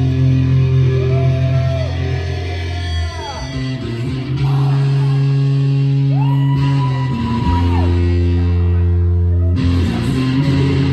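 Rock band playing: lead guitar notes bent up, held and let down, twice, over low chords that are held and change every few seconds.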